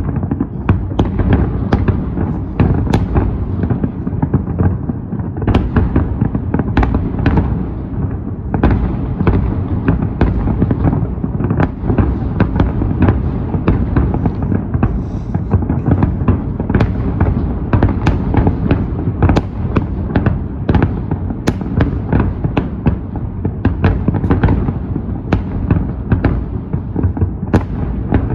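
Fireworks salute going off without a break: dense, deep booms of shell bursts with many sharp cracks on top.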